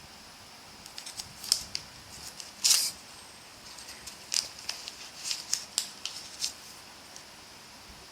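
Hard phone case being handled: sharp plastic-and-metal clicks and taps, with a longer scrape about two and a half seconds in, over a steady hiss.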